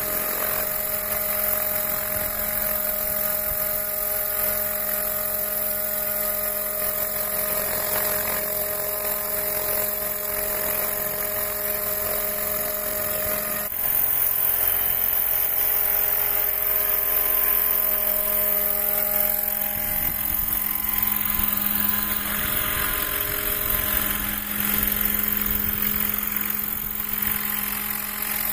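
Battery-electric 800-size RC scale helicopter hovering and flying low: a steady high whine from the motor and gear drive over the main-rotor noise, a little louder from about halfway through.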